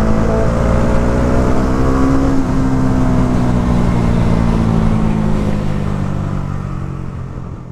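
Bajaj Dominar's single-cylinder engine cruising at highway speed, with wind rushing past. The engine note rises slightly in the first couple of seconds, then holds and slowly sinks, and the whole sound fades away near the end.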